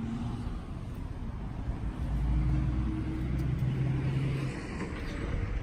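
A motor vehicle's engine running, a low steady hum that swells for a couple of seconds in the middle and then eases off.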